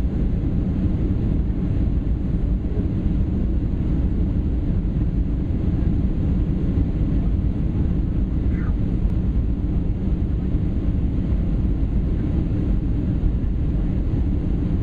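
Steady low roar of a Boeing 737's jet engines and rushing airflow heard inside the passenger cabin during the descent toward landing.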